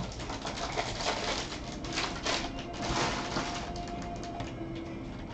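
Stack of Bowman baseball cards being flipped through in gloved hands: an irregular run of quick papery slides and flicks as each card is pushed off the top of the stack.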